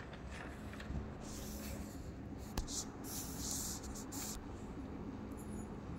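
Faint scratching and rustling handling noise, with a single light click about two and a half seconds in.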